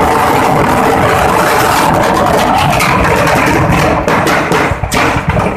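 Stock of firecrackers burning in a shop fire: a loud, continuous hissing roar with sharp cracks and bangs in it, which come thicker and more distinct over the last second and a half.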